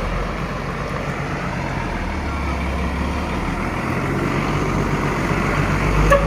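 Heavy diesel engine running steadily, getting louder near the end.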